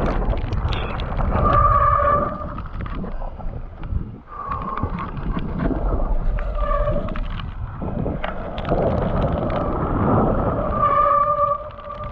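Wet mountain bike disc brakes squealing in short steady-pitched howls several times as the rider brakes, over wind rush and tyre noise and the clatter of the bike on rough trail.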